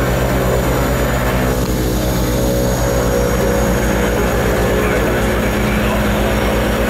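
Twin turboprop engines heard from inside the cockpit, running steadily at taxi power with a fast, even low propeller pulsing under the engine drone.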